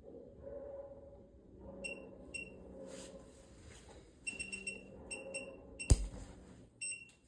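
StarLine car-alarm key fob overdriven from a bench power supply, its buzzer giving short high-pitched beeps in irregular clusters over a low buzz from its vibration motor. A single sharp crack about six seconds in is the loudest sound.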